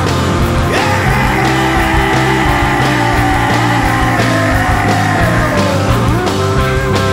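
Rock music with a steady beat and a long held, wavering high note over it.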